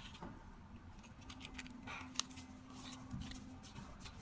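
Faint small metal clicks and scrapes from a windproof lighter's metal case and insert being handled, with a sharp click at the start and a few lighter ones after.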